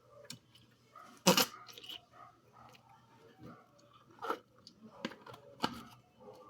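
Slime being squeezed and poked by hand, giving irregular sharp clicking pops: one loud pop about a second in and several more in the last few seconds.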